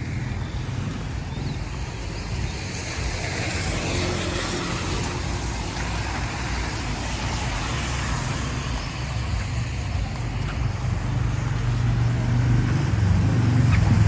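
Road traffic: a motor vehicle's low engine rumble over a steady wash of road noise, getting louder near the end as it comes closer.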